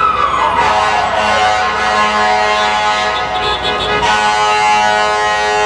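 Fire truck siren falling in pitch in the first second or so, then a long, steady blast of the truck's air horn, over the rumble of street traffic.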